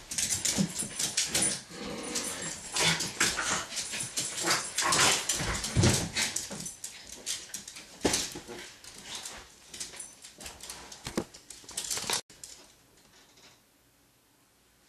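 A small dog whimpering and yipping among scuffling and knocking sounds, which stop abruptly about twelve seconds in.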